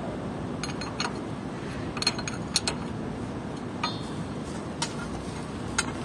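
Steel hand tools and fittings clinking as a socket wrench is handled at a filter canister: about eight short, sharp metallic clinks at irregular intervals, some briefly ringing, over a steady low background rumble.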